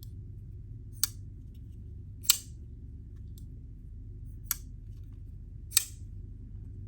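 Kizer Militaw folding knife being opened and closed, four sharp clicks spaced irregularly a second or two apart as the blade snaps out and locks or shuts. The owner guesses the pivot runs on bearings.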